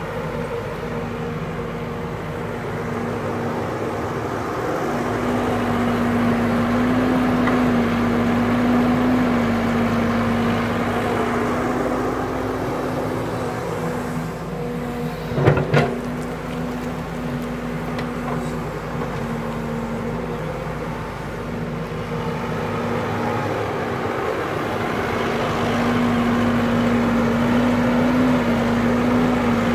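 Caterpillar hydraulic excavator's diesel engine running steadily as the bucket digs soil, swelling louder at times. A sharp double knock about halfway through.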